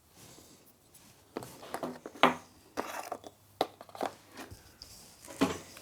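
Objects being picked up and set down on a workbench: a handful of separate light knocks and clicks, the clearest about two seconds in and just before the end.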